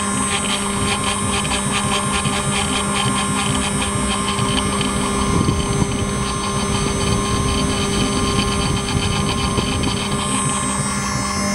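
CNC engraving machine spindle running with a fine engraving bit cutting into a metal plate: a steady mechanical hum with several held tones over an even hiss of the cutting.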